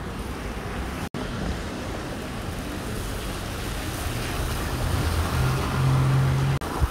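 City street traffic on wet roads: a steady hiss of passing vehicles, with an engine's low hum growing from about four seconds in and stopping shortly before the end. The sound drops out for an instant about a second in.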